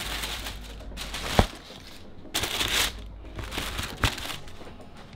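Tissue paper rustling and crinkling as sneakers are handled in their shoe boxes, in several bursts. A sharp knock about one and a half seconds in and a smaller one near four seconds.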